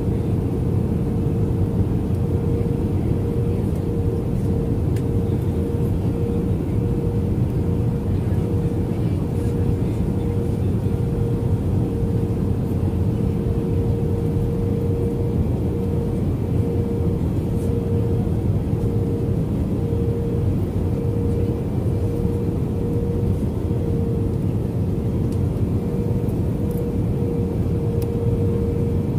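Cabin noise inside an Airbus A320-200 airliner descending on approach: the steady rumble of its jet engines and the airflow past the fuselage, with a constant droning hum over it that wavers slightly in the second half.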